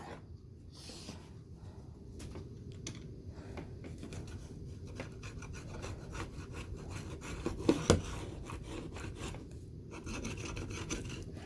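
Spline roller tool pressing screen spline into the groove of a window screen frame: a continuous run of rubbing and scraping with small ticks, and one sharp click about eight seconds in.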